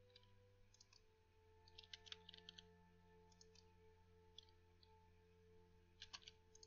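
Near silence with faint computer mouse and keyboard clicks, coming singly and in small clusters, over faint held tones.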